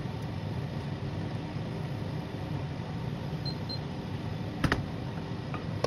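A spatula stirring a milky mixture in a nonstick frying pan over a steady low hum, with two sharp clicks close together a little after four and a half seconds in.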